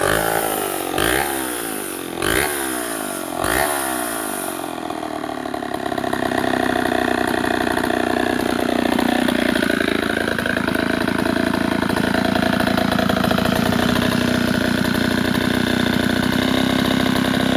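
Homelite 770D 95cc two-stroke chainsaw engine blipped three times in quick bursts of rising pitch, then running steadily at a constant speed. The owner thinks it is starving for fuel a little because of stiff carburetor diaphragms.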